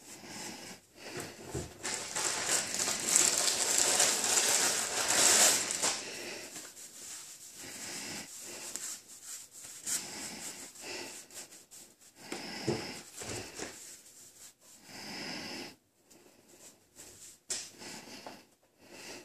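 Rustling and rubbing as a coiled bundle of paracord is handled and turned over in the hands. It is loudest for several seconds near the start, then comes as shorter scrapes and rustles.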